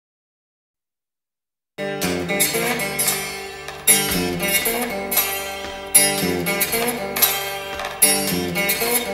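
About two seconds of silence, then a blues trio recording begins with a plucked guitar riff. The riff repeats with a strong accent about every two seconds.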